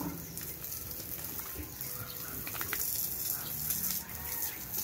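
Water spraying steadily onto a native pig as it is bathed, an even hiss of spray and splashing.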